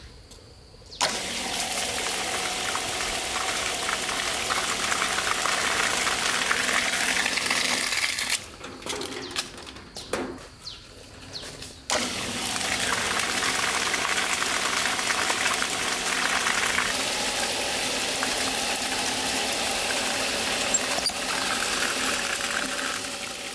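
Homemade PVC-pipe water pump driven by a 775 DC motor, switched on about a second in: a steady motor whine mixed with the rush and splash of pumped water. The sound breaks off for a few seconds near the middle, then runs steadily again.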